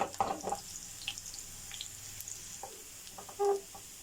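Chopped garlic sizzling in hot oil for a tarka, with a few light clicks and knocks through it.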